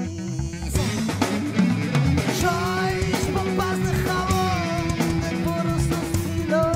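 Spanish funk-rock band playing an instrumental passage. Bass and guitar are joined by the full drum kit about a second in, with a sliding, bending melody line over the groove.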